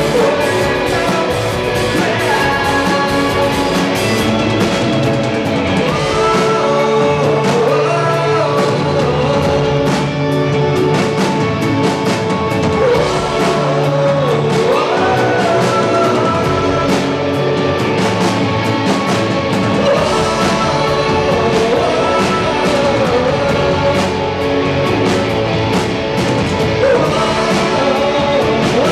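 Rock band playing live: electric guitars and drum kit, with a man singing lead.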